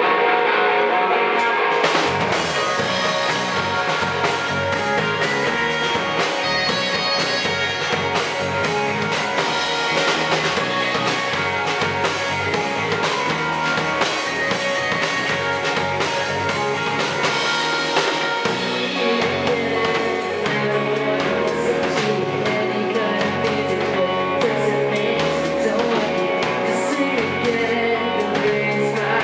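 Live pop-rock band playing: electric guitars, bass guitar, drum kit and keyboard, with a woman singing. The drums and bass come in fully about two seconds in.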